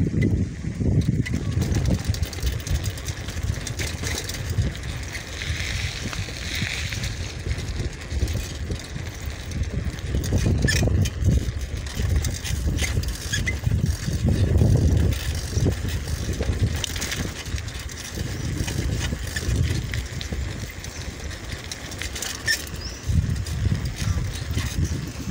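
Wind buffeting the microphone while riding a bicycle, an uneven low rumble that swells and fades, with a few sharp clicks.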